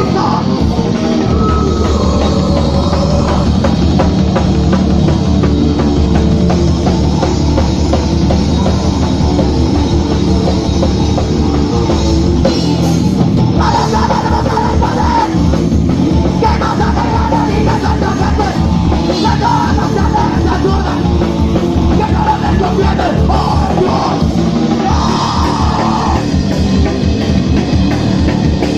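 A live punk/metal band playing loud, heavy music on electric guitar, bass and drum kit. Shouted vocals come in and out through the second half.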